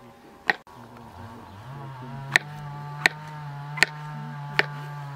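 Knife chopping on a wooden cutting board: five sharp knocks, the last four about three-quarters of a second apart, over a steady low drone.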